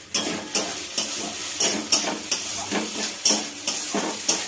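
A spatula scraping and stirring food frying in a steel pan, a quick uneven run of about eleven strokes, two or three a second, with sizzling between them.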